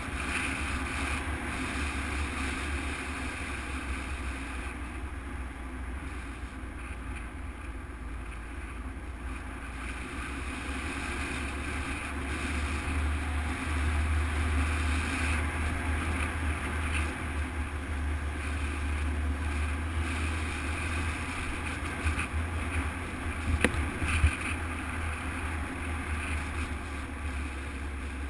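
Motorcycle engine running steadily under a heavy low rumble of wind on the microphone, getting somewhat louder about halfway through. A couple of sharp knocks come close together near the end.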